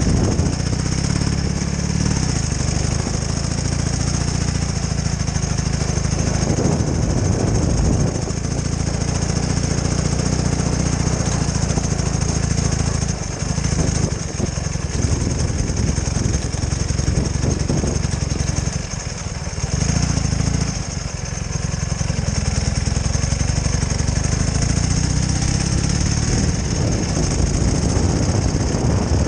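Ural sidecar motorcycle's flat-twin engine running while riding. The engine eases off briefly a few times in the middle, then picks up again.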